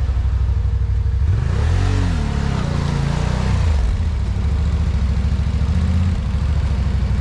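Off-road vehicle engine running at a low idle, revved up and back down once about a second and a half in, then blipped again briefly about three seconds in.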